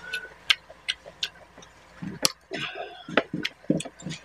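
Close-miked chewing of rice and fish curry: sharp wet mouth clicks and smacks at irregular intervals, with short low thuds of chewing between them.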